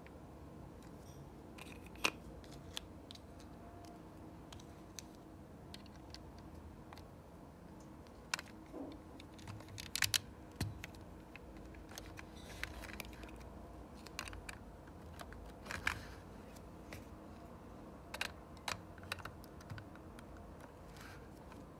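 Plastic Lego bricks clicking and tapping as they are handled and pressed onto a model: scattered sharp clicks, some in quick little clusters, over a faint steady low hum.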